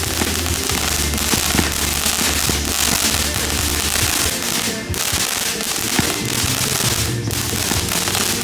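Fireworks finale: a dense, continuous barrage of crackling and popping bursts, over steady music.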